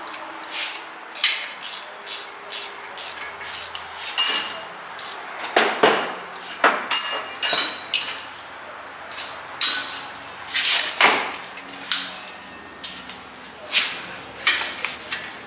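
Metal hand tools clinking and knocking: wrenches and sockets handled and set down on a metal tool cart, a string of irregular sharp clinks, some ringing briefly.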